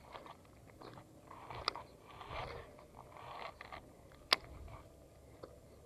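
Close handling noise: a few short crunchy scrapes about a second apart, scattered light clicks, and one sharp loud click a little over four seconds in.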